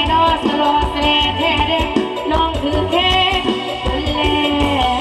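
Thai mor lam stage music played loud: a woman singing into a microphone over an amplified live band with a steady drum beat.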